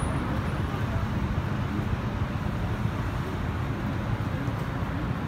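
Road traffic noise at a city intersection: a steady low rumble of passing vehicles.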